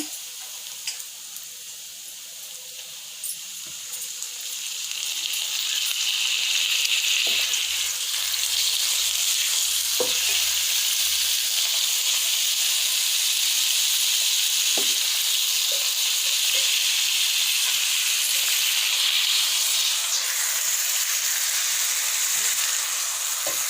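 Chicken pieces frying in a hot cast-iron skillet with sautéed onions, a steady sizzle that swells louder about five seconds in, with a few light clicks of the spatula against the pan as it is stirred.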